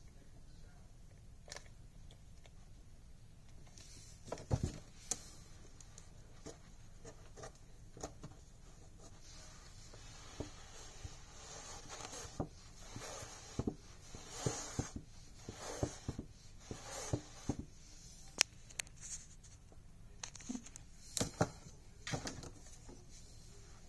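Faint handling sounds as hands glue and press faux fur onto a lampshade: irregular rustling with small taps and clicks, sparse at first and busier through the second half.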